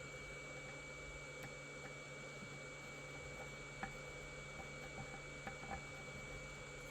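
Quiet room tone: a faint steady hum with a thin high whine, and a few small scattered clicks, the clearest a little under four seconds in and two close together near the end.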